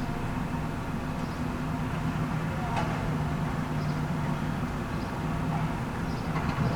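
Heavy excavator diesel engine running steadily under load, with a few brief metallic clanks from debris and scrap being handled, the clearest about three seconds in.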